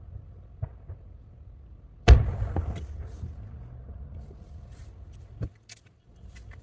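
Aerial firework shells bursting, heard from about 1.2 km away: one loud boom about two seconds in that rolls away over a second or so, with smaller thuds before and after it and faint crackling.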